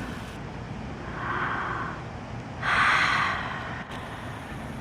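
A person breathing close to the microphone: two breaths, each about a second long.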